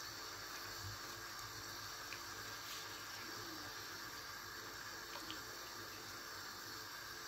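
Tomato and vegetable sauce thinned with hot water, heating toward the boil in a non-stick frying pan and stirred with a silicone spatula: a faint, steady liquid sound with a couple of light ticks.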